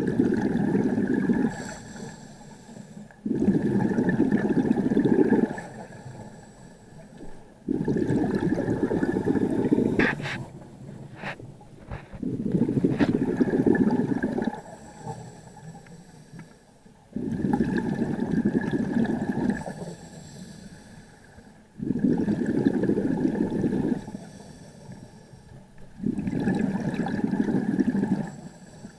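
Scuba diver breathing through a regulator underwater, heard through the camera housing: slow, regular breaths, each exhale a rush of bubbles lasting about two seconds, with a quieter inhale hiss between them. A few sharp clicks fall near the middle.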